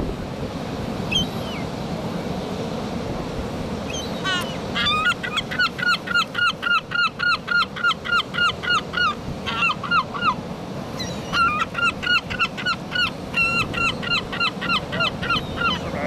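Large gull giving its long call: two long runs of rapid, laughing yelps, about four a second, with a short break between. A few single gull calls come over wind noise in the first four seconds.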